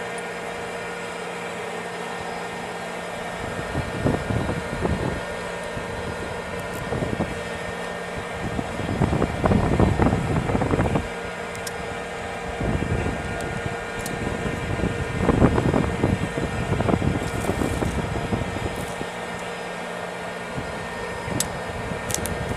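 M1 Abrams tank running at idle: a steady machine hum with a high whine, typical of its gas-turbine engine. Several louder rushing surges come and go.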